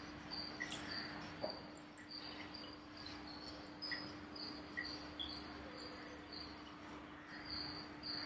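Faint, regular high-pitched chirping, about two to three chirps a second, over a steady low hum, with a few light clicks.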